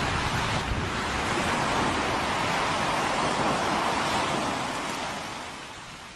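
A steady rushing noise that fades away over the last second or so.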